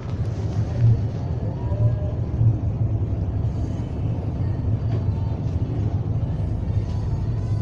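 Steady low rumble of motor vehicle noise, with faint music underneath.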